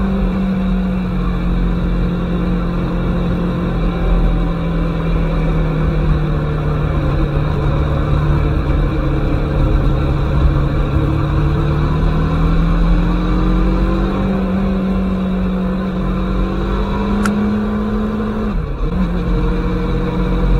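Aprilia Tuono motorcycle engine running under way. The engine note slowly falls over the first dozen seconds, then climbs back up, with a brief sharp dip in pitch near the end. A steady low rush runs underneath.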